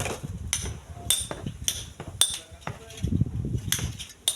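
Sharp clinks and knocks of stone being struck, repeating roughly twice a second, with low gusts of wind buffeting the microphone.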